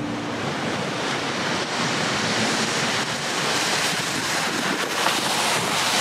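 A steady, even rushing noise.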